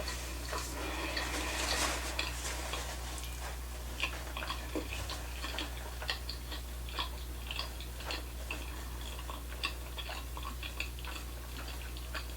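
Close-up chewing of sushi: an irregular run of small wet mouth clicks and smacks, with a brief rustle about one to two seconds in. A steady low hum lies underneath.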